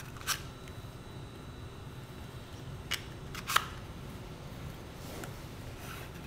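A few short, sharp clicks, the loudest about three and a half seconds in, from a homemade tin axe sheath being handled and fitted over the axe head while paracord is wrapped around it.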